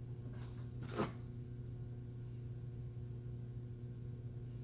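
Steady low hum with one brief knock about a second in.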